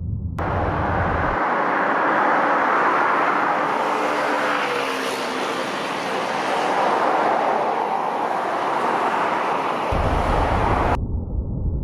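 Road traffic noise: the rush of passing cars' tyres and engines, swelling twice. It starts abruptly and cuts off abruptly about a second before the end.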